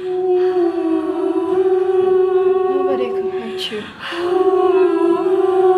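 A voice humming a long, steady held note, broken off for a moment about three seconds in and then taken up again on the same pitch.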